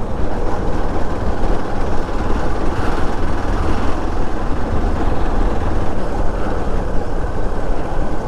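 Motorcycle on the move: engine running under steady, loud wind and road rumble on the rider's microphone.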